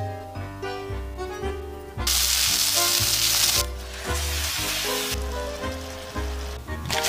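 Minced pork and dried greens sizzling in a hot frying pan as sauce and water are added. The sizzle bursts loudest about two seconds in for a second and a half, then comes back more softly near the end, over background music with a steady bass line.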